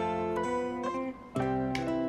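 Background music: a plucked acoustic guitar playing a light tune, with new chords and notes struck every half second or so.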